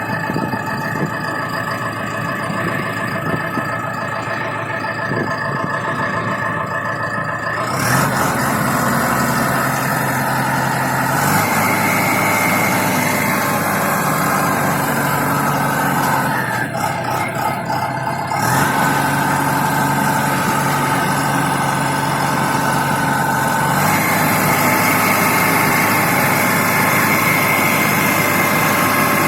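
Self-loading concrete mixer truck's engine running steadily. Its sound changes abruptly several times, about 8, 11, 16, 18 and 24 seconds in.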